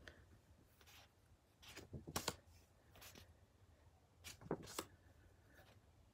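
Paper flash cards being changed one at a time: a few short, faint paper rustles and taps about every second or two, with near silence between.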